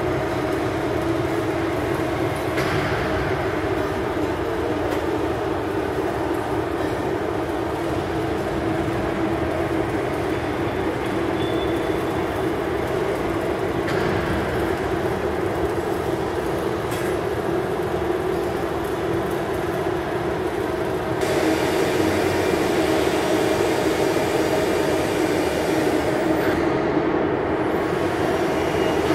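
Steady hum of a CNC press brake's hydraulic power unit running idle, its electric motor and pump turning without a bend stroke. It gets louder about two-thirds of the way through.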